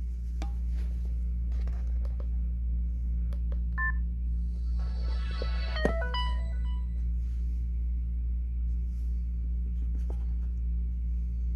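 LG KM380 slider phone's keypad beeps: a short two-note beep about four seconds in, then a click near six seconds and a quick run of short beeps at different pitches as its keys are pressed to unlock it. A steady low hum runs underneath and is the loudest sound.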